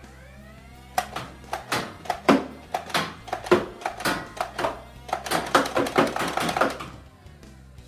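Nerf Modulus Stryfe flywheel blaster firing a quick string of about a dozen foam darts, each shot a sharp snap over the whir of its flywheel motor, coming faster toward the end. Background guitar music plays underneath.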